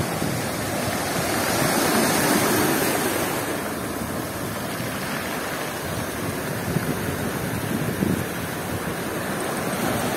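Storm surf on the Black Sea, waves breaking and washing over the shallows in a steady rushing that swells about two seconds in and then eases.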